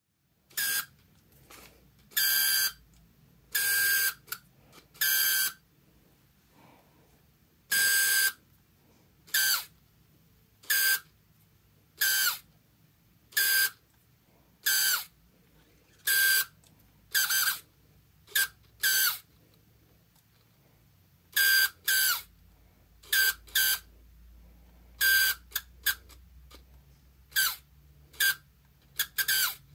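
Canon EF 28-80mm zoom lens's focus motor squeaking and grinding in short bursts, each a fraction of a second, over and over about a second apart. The noise is a newly developed fault in the focus drive, of unknown cause; the lens still works.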